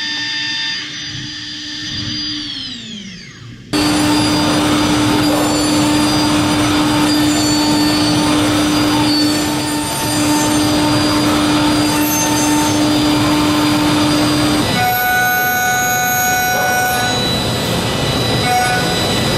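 High-speed spindle of a Mazak HCR-5000 5-axis horizontal machining center milling aluminium: a steady whine falls in pitch and fades as the spindle slows, then about four seconds in loud cutting noise starts abruptly, a steady high whine over a hiss. Near the end the whine changes to a different, higher set of steady tones.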